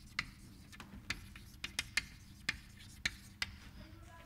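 Chalk tapping against a blackboard while writing: a string of short, irregular clicks that stop about three and a half seconds in.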